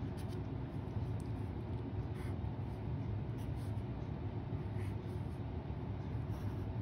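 Marker pen writing on paper: a few soft scratchy strokes, over a steady low room hum.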